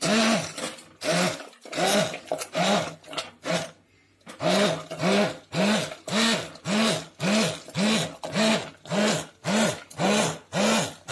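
Hand-held immersion blender pulsed on and off in short bursts, its motor speeding up and winding down each time as it churns pressure-cooked amaranth greens in liquid. The bursts come unevenly at first, then steadily nearly twice a second.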